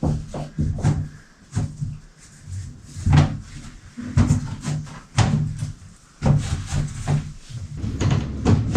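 Irregular knocks and clacks of vinyl floor planks being handled, set down and tapped into place on the floor.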